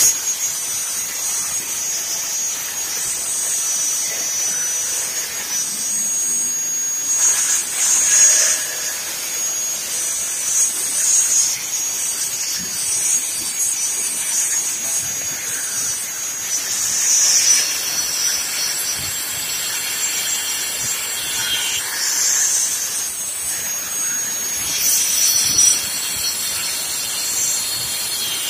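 Angle grinder rigged as a post-mounted garden circular saw, running with a steady high whine. Several louder surges come as branches are fed into the spinning disc and cut.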